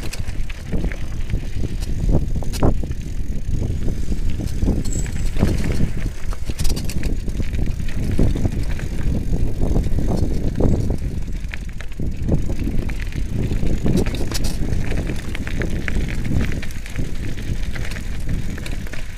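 Mountain bike rolling downhill over loose gravel and rocks: tyres crunching and parts rattling in irregular clicks, over a constant low rumble.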